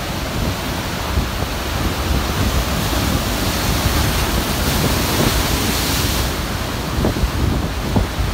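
Wind buffeting the microphone over the steady rush of rough surf, with a louder hiss for a few seconds in the middle.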